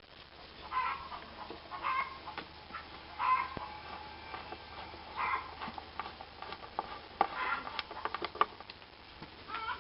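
Hens clucking in short calls every second or two, with a few sharp clicks in between.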